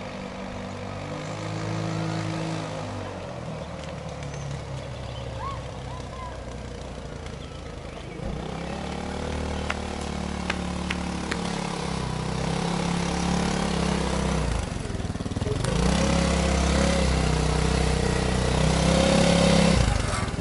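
Sport go-kart buggy's engine running as it drives up the street toward the listener, growing steadily louder, its pitch rising and falling as the throttle changes, with a brief let-off about three quarters of the way through before it comes on again.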